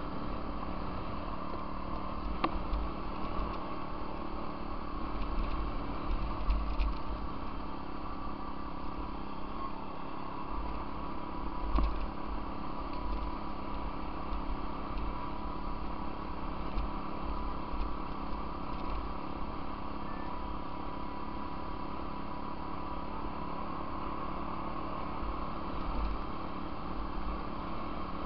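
Apollo 125cc pit bike's single-cylinder engine running at steady revs, heard from the bike itself, with wind and bumps rumbling on the microphone now and then.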